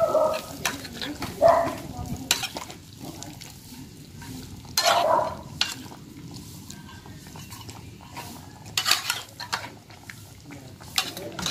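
Beef liver, bell pepper, chive flowers and onion stir-frying in hot oil: a steady sizzle, with the stirring utensil scraping and knocking against the pan every second or so, in louder patches near the start and about five seconds in.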